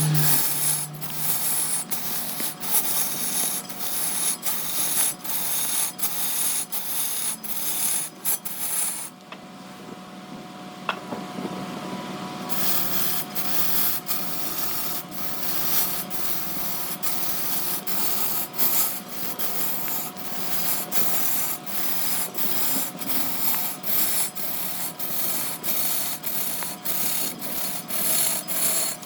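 Continuous rasping and rubbing of wood being worked on a spinning wood lathe, broken by frequent brief dropouts, with a duller stretch about nine to twelve seconds in.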